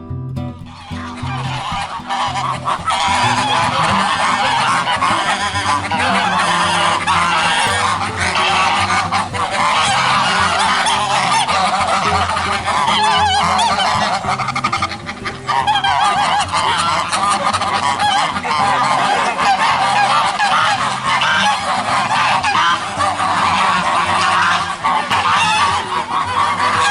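A flock of geese honking all at once in a dense, unbroken chorus of overlapping calls.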